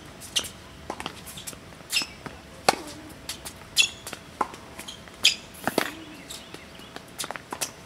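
Tennis rally on a hard court: sharp pocks of racket strikes and ball bounces, the loudest a near forehand about six seconds in, with sneaker squeaks and scuffing footsteps between the shots.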